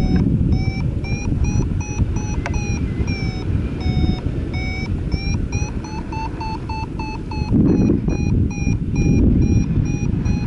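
Paragliding variometer beeping a climb tone, short beeps a few times a second that come faster around six seconds in and rise in pitch near the end, the sign of the glider climbing in a thermal. Wind rushes on the microphone underneath, with stronger gusts near the end.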